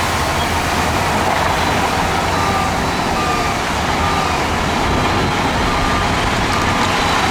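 Diesel engine of a heavy earthmoving machine running steadily, with a reversing alarm starting about two seconds in and beeping evenly, a little more than once a second.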